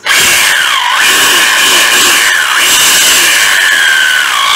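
Panasonic EZ7880 28.8 V cordless hammer drill running free in hammer mode, loud and rattling. Its motor pitch dips and recovers three times as the speed changes.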